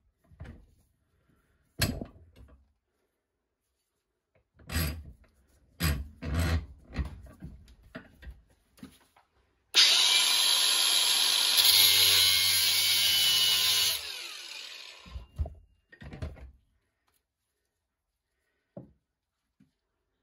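Knocks and clatter of handling at the bench vise. Then, about ten seconds in, a Ryobi angle grinder runs hard for about four seconds, cutting the sprue off an aluminium casting, and winds down.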